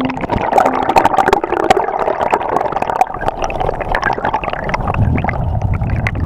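Water heard through an underwater camera: gurgling and bubbling with a dense crackle of sharp clicks.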